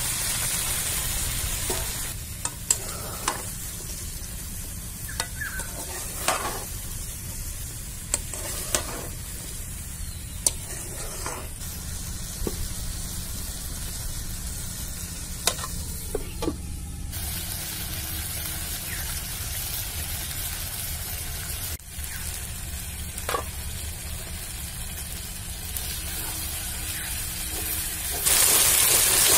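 Snake gourd and potato pieces frying in spiced oil in a karahi, a steady sizzle. A metal spatula stirs them and clicks against the pan now and then. The sizzle is louder for the first couple of seconds and again near the end.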